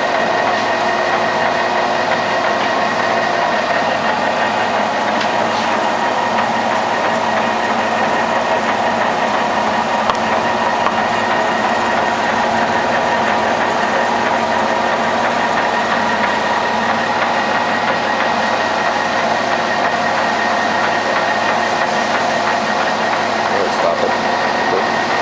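Voest DA210 engine lathe running steadily under power, a constant mechanical hum and whine made of several steady tones.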